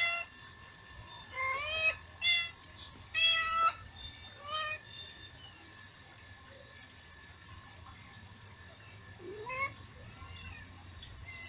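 Cat meowing repeatedly: a run of short meows that rise in pitch over the first few seconds, then a lull and two fainter meows near the end.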